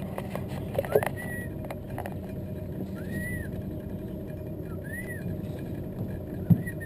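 Boat's outboard motor running low and steady, with four short whistles, each rising then falling, about two seconds apart, used to call an African fish eagle. A single knock near the end.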